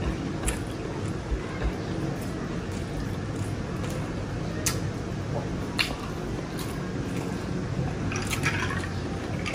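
Close-miked chewing of a mouthful of rice and grilled chicken, with scattered wet mouth clicks and lip smacks, a few more of them near the end, over a steady low room hum.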